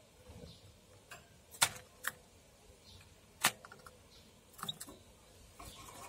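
Several sharp clicks and taps at irregular intervals, the loudest about one and a half seconds in, over a faint steady background.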